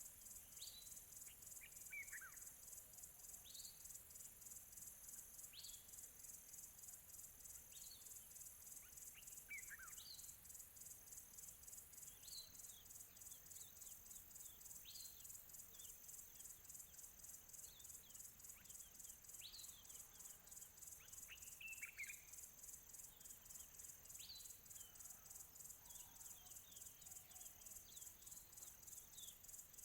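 Faint countryside ambience of crickets chirping in a steady, rapidly pulsing chorus. Short, downward-sweeping bird calls sound every second or two over it.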